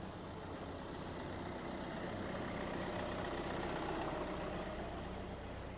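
A car engine running, with a steady low hum that grows a little louder around the middle and then fades.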